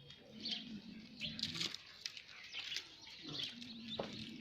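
Small birds chirping and twittering in quick, overlapping calls.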